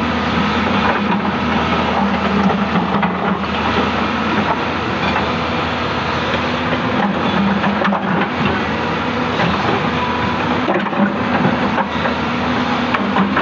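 Hyundai 220-9S crawler excavator's diesel engine running steadily under load as it works, with a few light knocks of rock against rock.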